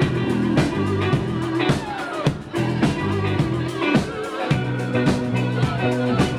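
Rock band playing live, with drums, bass and electric guitar over a steady beat.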